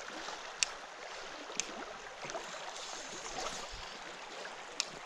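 River current rippling around a canoe's hull as a paddle dips in the water, with three sharp clicks and a short dull thump a little before four seconds in.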